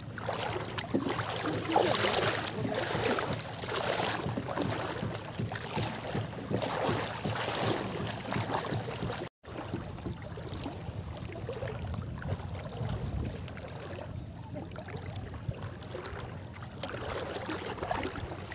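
Shallow seawater sloshing and splashing around wading legs, in uneven surges at first and softer later, broken by a brief dropout about halfway through.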